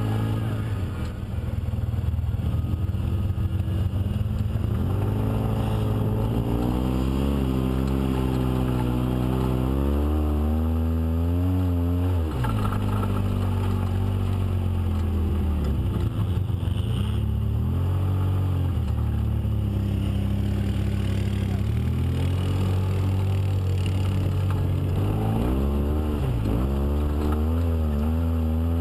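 Polaris RZR side-by-side engine heard close up while driving on a dirt trail, its pitch climbing and dropping several times as the throttle is opened and eased off.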